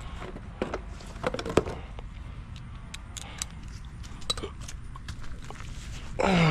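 Scattered light clicks and clinks of hand tools and metal parts being handled, the sharpest a little over a second in, over a low steady background hum.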